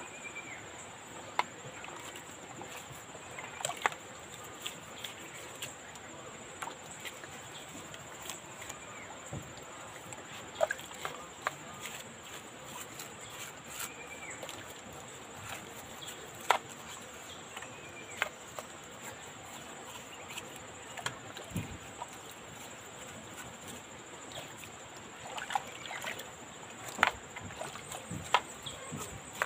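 Brush scrubbing a car cylinder head in a bucket of soapy water: wet swishing and splashing with irregular sharp clicks and knocks as the brush hits the metal.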